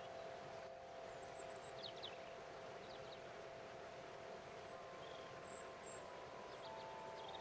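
Crystal harp holding soft, sustained ringing tones, with a new higher tone joining about five seconds in. Under it is a faint steady rush of running water, and a few brief bird chirps come through.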